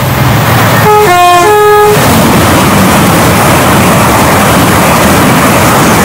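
Train horn sounding a short three-note call about a second in, higher, lower, then higher again, over the loud, steady rush of a train passing at speed.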